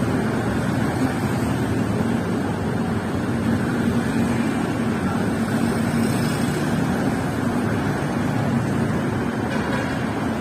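Steady city street traffic: vehicle engines running with a low hum over a noisy wash.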